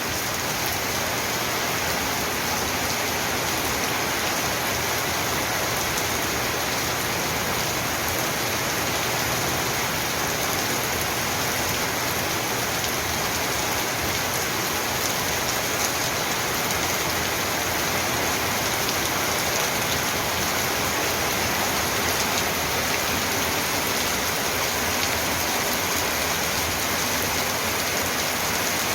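Heavy rain shower falling steadily, an even hiss of rain with no let-up.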